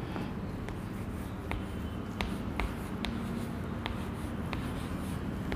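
Chalk writing on a chalkboard: a series of sharp taps and short scratches, roughly two a second, as letters are formed, over a low steady room hum.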